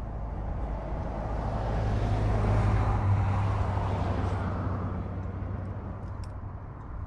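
A motor vehicle passing by: its engine and road noise swell over about two seconds, peak around the middle, then fade away.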